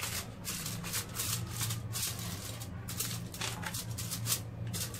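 Aluminium foil crinkling and crackling in quick irregular bursts as it is pressed and folded down around the rim of a clay bowl, over a steady low hum.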